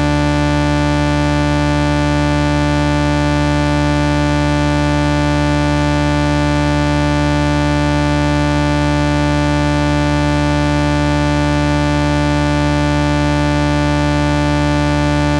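A loud, steady electronic drone: a dense held chord of many tones mixed with hiss, not changing at all.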